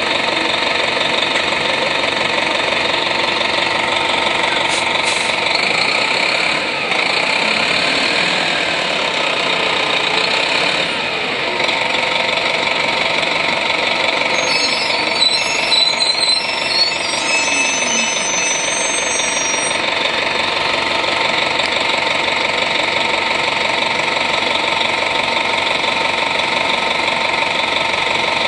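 The Detroit Diesel Series 50 inline-four diesel of a 1996 Nova RTS city bus running steadily, its pitch holding even. A faint wavering tone slides up and down in the background for a few seconds early on, and a few short loud knocks come about halfway through.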